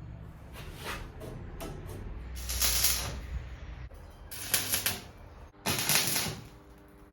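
Welding steel square tubes: three short bursts of crackling hiss, each under a second.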